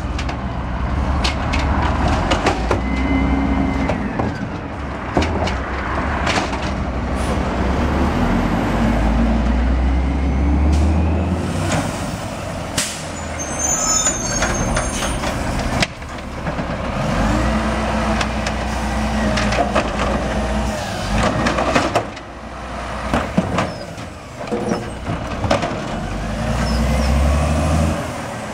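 Automated side-loading garbage trucks at the curb: diesel engines running and speeding up in several stretches, with repeated hisses from the air brakes.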